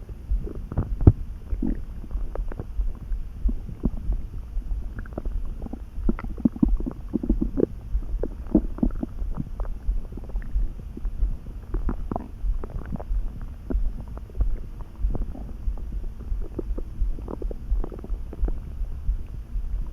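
Human stomach gurgling and rumbling while neither hungry nor full: a string of irregular short pops and squelches over a low steady rumble, busiest about a third of the way in.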